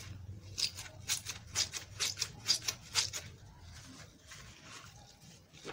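Kitchen sponge rubbed back and forth over a wet bar of homemade soap, working up lather to test whether it foams. The scrubbing strokes come quickly, two to three a second, then ease off after about three seconds.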